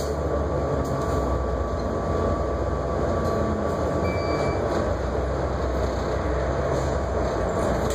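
City transit bus under way, heard from inside near the front doors: a steady engine and road rumble, with a faint whine that fades about halfway through.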